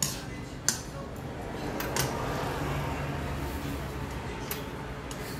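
Stainless steel chopsticks clicking a few times against a ceramic bowl of jajangmyeon while the noodles are stirred and eaten, over a low steady room hum.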